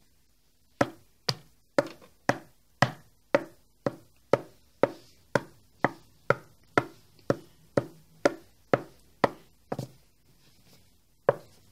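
Heeled footsteps: a steady walk of sharp clicks, about two a second, stopping about ten seconds in, with one last click near the end.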